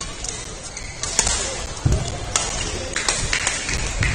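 Badminton rackets striking shuttlecocks in a rally: a string of sharp cracks, some from neighbouring courts in the same sports hall, with a low thud about two seconds in.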